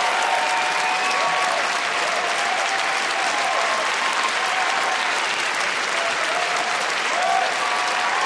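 Audience applauding steadily, with some voices calling out over the clapping.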